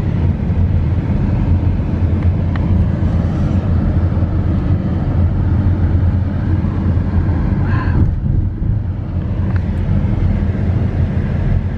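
Wind buffeting the microphone over a steady rumble of road traffic, with a brief higher-pitched vehicle sound about eight seconds in.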